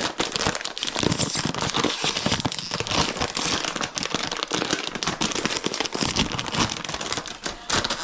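Packaging being handled by hand, crinkling and rustling with dense, irregular crackles throughout.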